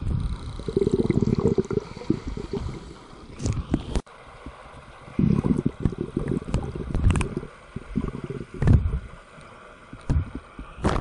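Pool water heard from underwater: muffled sloshing, bubbling and splashing from a child swimming and kicking past, coming in uneven bursts with scattered clicks.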